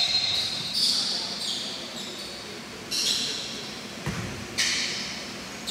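Basketball game sounds in a gym: several short high-pitched squeaks, typical of sneakers on a hardwood court, and a single dull thud about four seconds in, over steady hall background noise.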